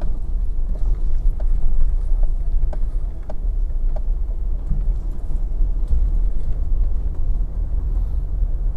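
Car driving along a road: a steady low rumble of engine and tyres, with a few faint light ticks.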